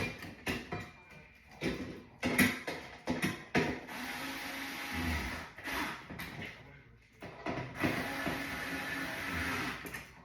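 Irregular knocks, clicks and scraping of furniture parts and hand tools being handled during assembly, with a low thump about five seconds in.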